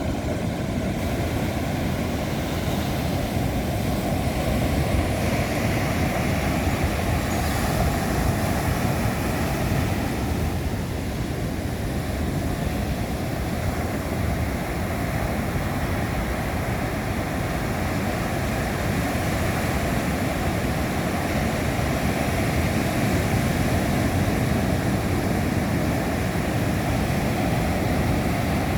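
Big Atlantic surf breaking on the shore in high wind, with wind buffeting the microphone: a steady, loud low rumble with no distinct single wave crashes.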